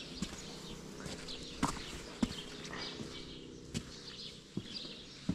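Footsteps, a few sharp steps a second or so apart, with birds chirping faintly in the background.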